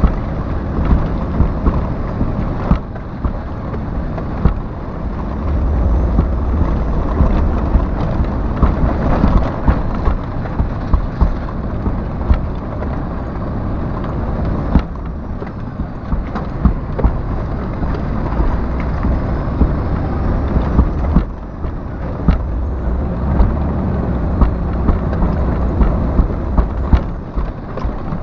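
Heavy truck's cab interior noise while driving over a rough dirt road: steady low engine and tyre rumble with frequent short knocks and rattles as the cab jolts over the ruts.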